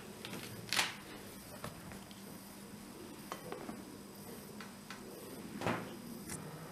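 Kitchen handling sounds as a glass mixing bowl is set down and covered with a silicone lid: two sharp knocks, one about a second in and one near the end, with faint clicks between.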